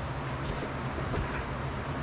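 Steady low hum of background noise with a couple of faint ticks from the steel squat rack's uprights as they are gripped and rocked by hand.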